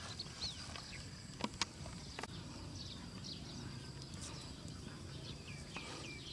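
Outdoor ambience: short, falling chirps from small birds over a steady high insect drone. There are a few sharp clicks about a second and a half in.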